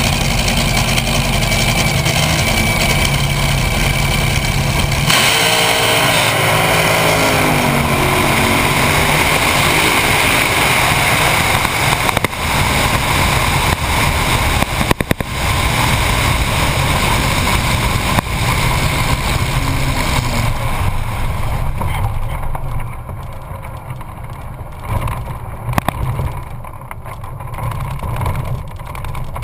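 Top Fuel dragster's supercharged nitromethane V8 heard from an onboard camera: a steady idle, then an abrupt change about five seconds in as the car launches into a loud, rough run. From about twenty seconds in, the sound falls away into wind rush as the car slows.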